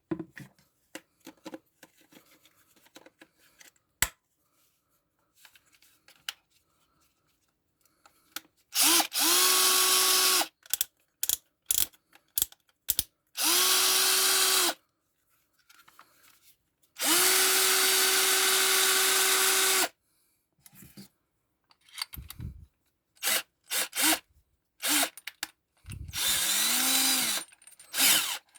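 RAZZ CD-12G cordless drill-driver running in four bursts of one to three seconds each, the motor spinning up to a steady whine each time. In the last burst the pitch sits lower and bends down and back up, as the motor slows under load. Light clicks of handling come between the bursts.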